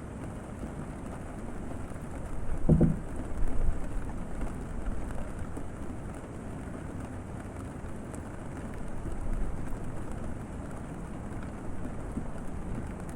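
Steady rain on a boat cabin. About three seconds in, the boat's wood gives a short, low creak.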